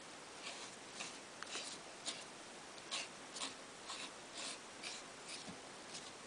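Stiff folded paper units of a 3D origami model rustling and scraping in short scratchy bursts, about two a second, as a hand handles and turns the model.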